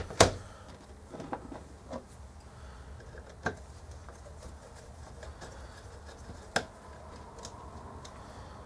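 Scattered light clicks and taps of a small screwdriver working on screws in a circuit board held in a plastic front panel. There is a sharper click right at the start, and two more about three and a half and six and a half seconds in.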